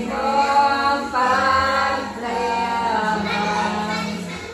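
A group of women singing a devotional hymn together without instruments, in slow, long-held notes.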